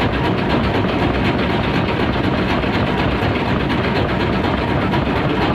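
A boat's engine running steadily, a low, even engine noise with no change in pace.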